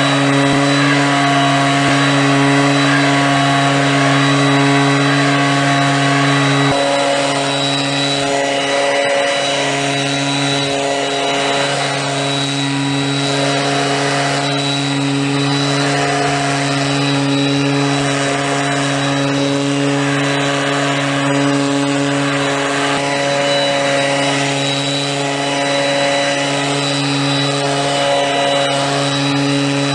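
Backpack brush cutter's small petrol engine running steadily at high speed, driving a blower attachment that pushes a rush of air. The engine note dips briefly a couple of times about a quarter of the way in.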